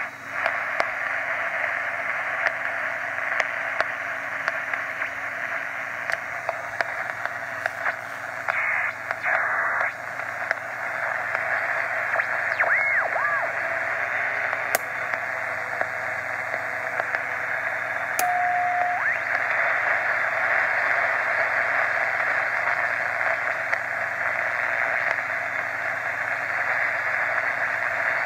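ARC-5 command set receiver's speaker hissing with band noise as the set is tuned across its 1.5–3 Mc range. A brief gliding whistle comes about halfway through, and a short steady tone and a couple of sharp clicks follow a few seconds later.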